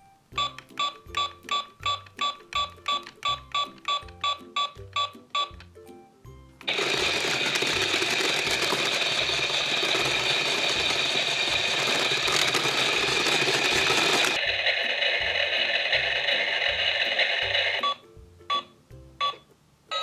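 Toy blender running its blending cycle: a loud, even whirring noise starts about seven seconds in, drops to a quieter whir with a high hum about halfway through, and stops a few seconds before the end, over background music with a steady beat.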